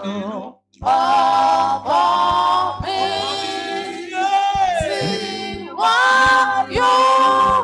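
Church worship singing: long, held sung phrases with pitch glides, and a short break about half a second in.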